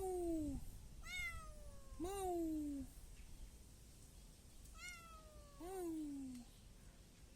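Kitten meowing about five times. The longer meows rise briefly and then fall in pitch, and shorter, higher-pitched meows come between them.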